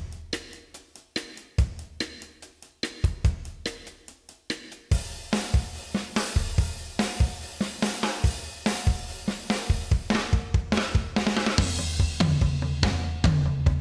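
Sampled acoustic drum kit from Toontrack's Stockholm SDX in Superior Drummer 3, with the Country Pop mix preset, playing a groove at 144 beats per minute. It starts sparse, with kick, snare and hi-hat hits, and becomes a full beat with a steady cymbal wash about five seconds in. Deep ringing low tones join near the end.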